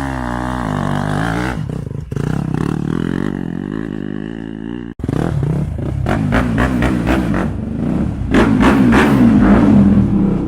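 Dirt bike engine running and revving, the pitch rising and falling, with abrupt cuts about two and five seconds in. It is loudest and steadiest near the end.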